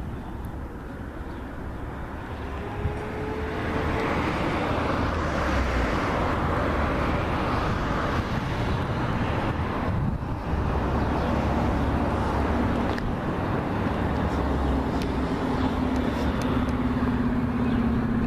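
Road traffic going by: a steady rush of vehicle noise that grows louder about four seconds in, with a low engine tone slowly falling in pitch near the end.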